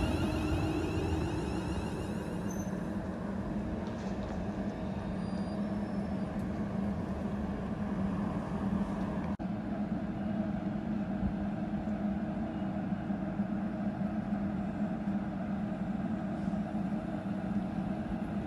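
Train at the station running with a steady hum, its pitch unchanging.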